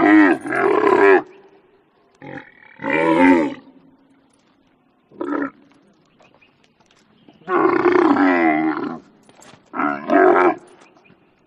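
Camel roaring in a series of about five loud calls with short silent gaps between them. The calls vary in length, the longest lasting about a second and a half, near the middle.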